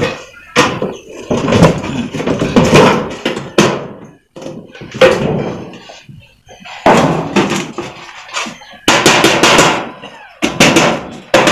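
Hammer knocking and sheet metal clattering as the folded, overlapping seam of a sheet-metal box gutter corner is worked closed, with a quick run of knocks near the end.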